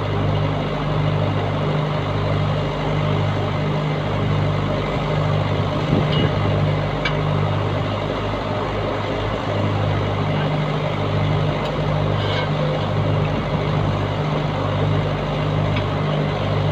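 Heavy diesel truck engine idling with a steady low throb that pulses about twice a second. A few faint metallic clicks come through over it.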